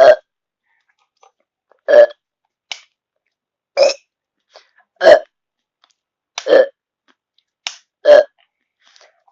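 A person burping: six short, loud burps in a row, roughly one every one and a half seconds, with silence between them.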